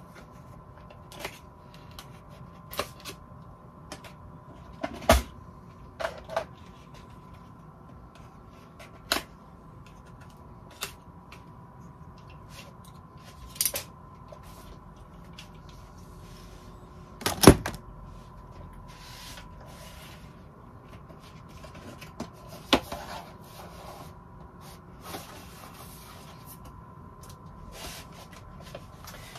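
Handling noise on a workbench: sporadic clicks, taps and knocks as items are picked up, rummaged through and set down. The loudest knocks come about 5 seconds in and about 17 seconds in, over a faint steady hum with a thin high tone.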